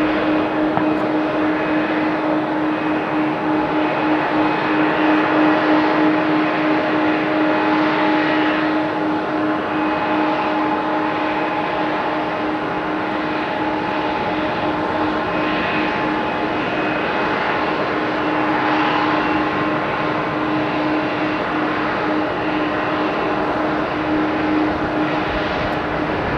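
Jet engines of a McDonnell Douglas MD-11F freighter running at a steady setting: a constant rushing noise with a steady whine of several fixed tones, the pitch neither rising nor falling.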